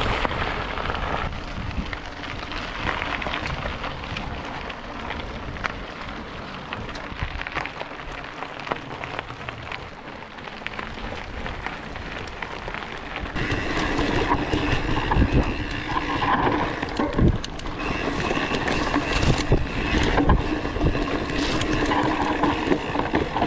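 Mountain bike ride heard from a bike-mounted camera: wind rushing over the microphone and tyres rolling on a gravel road. About 13 seconds in, the sound changes to riding a forest trail, with a steady high buzz and frequent knocks and rattles from bumps.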